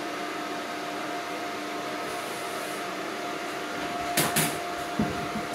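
Electric fan running with a steady hum and a faint whine. Two brief knocks sound about four seconds in.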